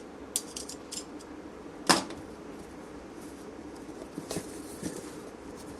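Packaging being handled and opened: scattered light clicks and rustles, with one sharp knock about two seconds in, over a steady low hum.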